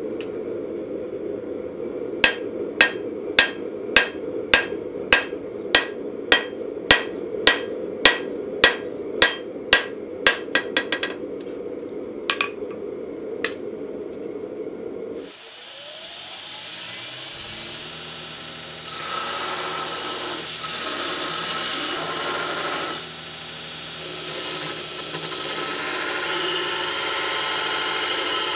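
Hand hammer striking a red-hot steel knife blade on an anvil, about two blows a second for some nine seconds, then a few lighter taps, drawing the blade out wider, over the steady running of the forge. About halfway through, a belt grinder motor spins up and then grinds the blade.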